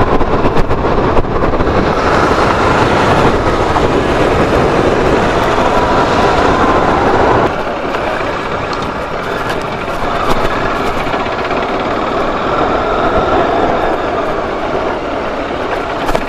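Motorcycle riding along, heard from a helmet-mounted action camera: wind rushing over the microphone with the engine running underneath. The low rumble of the wind drops sharply about seven and a half seconds in.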